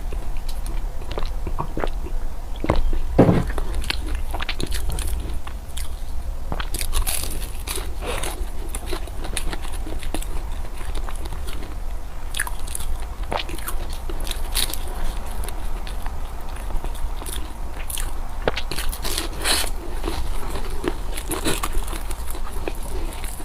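Close-miked eating: biting into and chewing food, with irregular crunches and mouth clicks, over a steady low hum.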